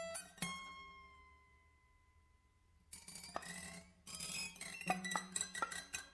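Free improvisation on prepared guitar. A single struck note rings out and fades away over about two seconds. After a short lull, from about three seconds in, a busy stretch of metallic plucks, clinks and scrapes follows.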